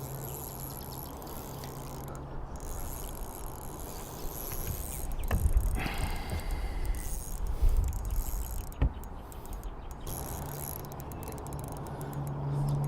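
Fishing reel being wound against a heavy hooked fish, its gears and drag clicking and rasping, with a few sharp knocks partway through.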